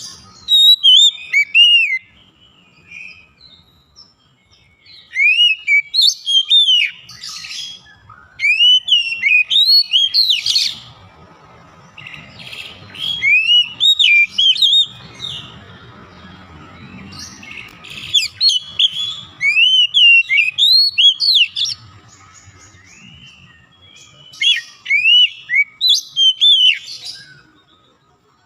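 Oriental magpie-robin (kacer) singing: loud phrases of sliding whistled notes, repeated in about six bursts with short pauses between.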